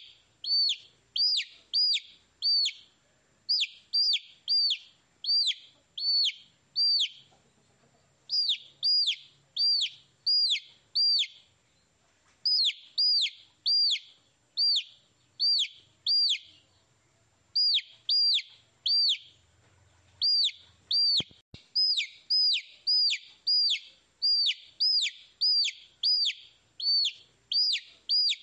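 Baby chicks peeping: high peeps, each sliding downward, come in quick runs of three to five with short pauses between the runs.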